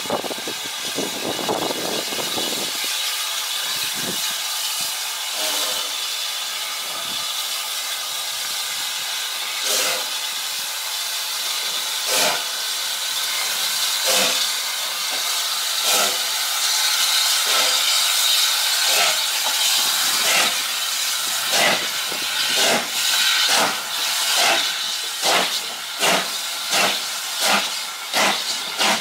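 Southern Railway S15 class 4-6-0 No. 506 steam locomotive starting away with a goods train. Steam hisses steadily from around the cylinders, under exhaust chuffs from the chimney that start slow, about one every second and a half, and quicken to nearly one a second near the end.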